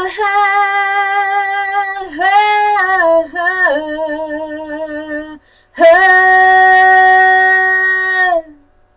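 Solo female voice singing a cappella, holding long sustained notes with a wavering run and vibrato in the middle. After a short breath it ends on one long held note that falls away about eight and a half seconds in.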